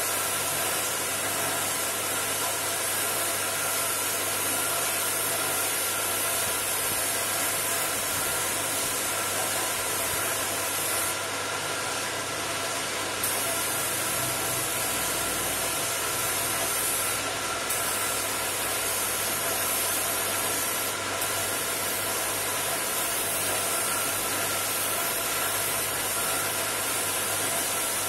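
Gravity-feed paint spray gun hissing steadily as it sprays paint onto a car's door panel, with a steady motor hum underneath.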